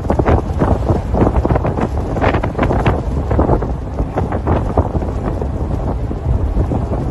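Strong gusty wind buffeting the microphone: a constant low rumble broken by frequent irregular crackling gusts.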